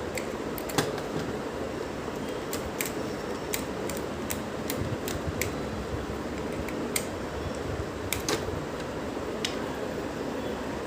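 Irregular small clicks and ticks of screws being driven with a screwdriver to fix a new hard disk into its mounting case, over a steady background hiss.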